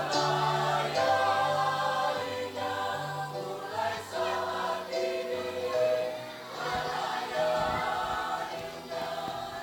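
Church choir singing an Indonesian hymn in harmony, with held chords changing about once a second.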